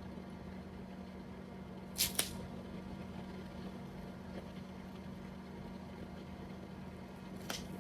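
A few brief crinkles of plastic shrink wrap being peeled off a CD box set, a quick pair about two seconds in and another near the end, over a steady low hum.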